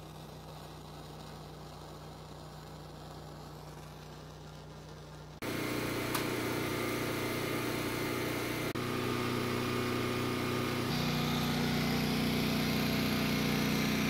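A small machine's motor running with a steady hum. It turns much louder and changes pitch about five seconds in, and changes abruptly twice more.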